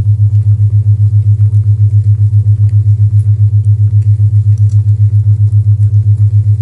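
A loud, low isochronic tone, a steady hum pulsing on and off about six times a second, with faint fireplace crackles scattered underneath.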